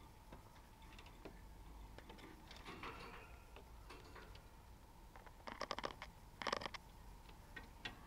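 Budgerigar pecking and moving on the cage's wire grid floor: scattered faint ticks and taps, with two quick rattling runs of clicks a little past the middle.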